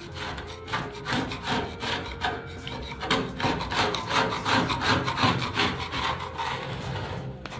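Hand tool rubbing back and forth over painted sheet metal in quick repeated strokes, about two to three a second, as softened paint is worked off the surface.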